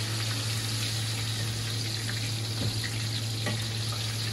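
Hot oil frying with a steady hiss over a low steady hum, with a few faint ticks: a batch of floured fish flash-frying in a wok.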